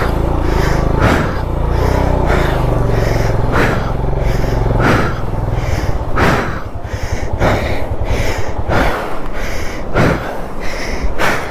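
A man panting hard, out of breath after heavy exertion at high altitude: loud, gasping breaths about one every 1.2 seconds. A low steady rumble underneath stops about nine seconds in.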